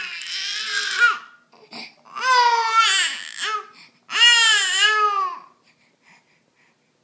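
A baby crying angrily in a tantrum: long wailing cries, one after another, with short gasps between. The crying stops about five and a half seconds in.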